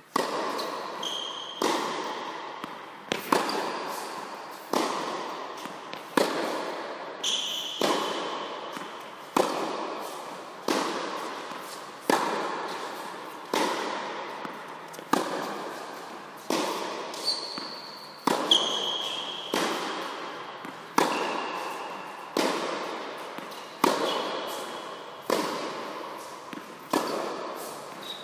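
Tennis ball struck by a racket and bouncing on an indoor hard court, sharp pops in a steady rally rhythm, the loudest about every one and a half seconds, each ringing out in the echo of a large tennis hall. A few short high squeaks of shoes on the court come in between.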